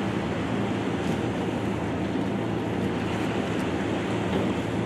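Combat Boat 90's diesel engines running steadily at the shore: a low, even engine drone under a constant rushing wash of noise.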